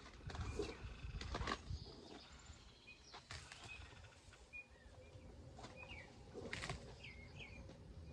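Small birds chirping in short calls, with a few brief rustles and scrapes of digging and pulling plants in garden soil, the loudest in the first couple of seconds.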